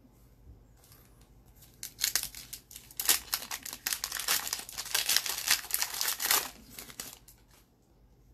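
Crinkly plastic wrapper of a hockey card pack being torn open and crumpled, a dense crackling rustle lasting about five seconds, starting about two seconds in.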